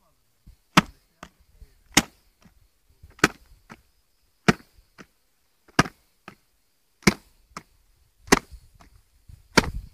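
Sharp knocking blows, eight loud ones at an even pace of about one every second and a quarter, with fainter knocks between them, like chopping.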